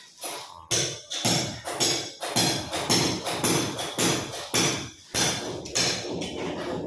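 Steady rhythmic knocking, sharp knocks about twice a second, each with a short ringing tail.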